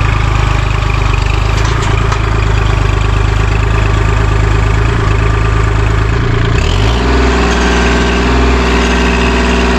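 Kubota compact tractor's diesel engine running close by as it works a front loader with pallet forks against a tree stump. About seven seconds in, the engine note shifts and settles into a steadier hum.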